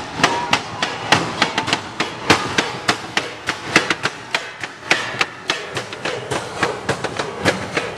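Rapid, uneven wooden knocking and clacking, several sharp strikes a second, from percussion played by hand on a wooden frame on a parade puppet's cart.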